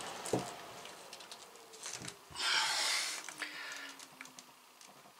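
Light clicks and rustling of PVC pipe and fittings being handled while a freshly cemented joint is held together, with a short hiss of rubbing in the middle.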